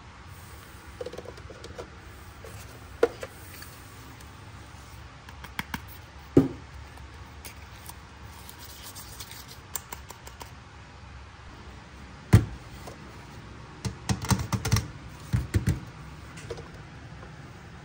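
Scattered light clicks and taps of small plastic miniature-kitchen toy pieces being handled and set down. A sharp knock comes about twelve seconds in, followed by a quick run of clicks.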